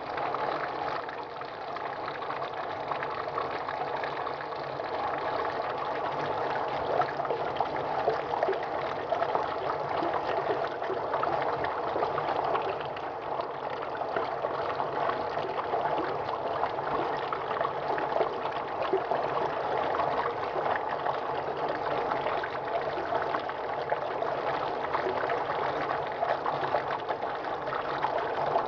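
Running water, a steady continuous splashing and trickling.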